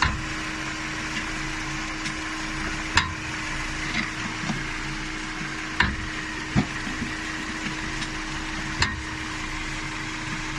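Volvo V70 running with a steady hum, broken by about half a dozen sharp clicks and knocks at irregular intervals: the drive shaft noise that shows up when changing gears.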